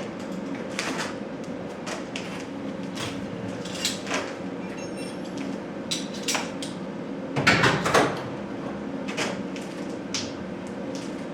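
Short knocks and clatters of garage door panels and hardware being handled and fitted, a dozen or so irregular hits with the loudest cluster about three-quarters of the way through, over a steady low hum.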